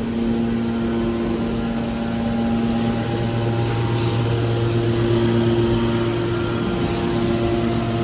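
Hydraulic power unit of a scrap car baler running: electric motor and hydraulic pump giving a steady hum with a whine. The mix of tones shifts about three seconds in.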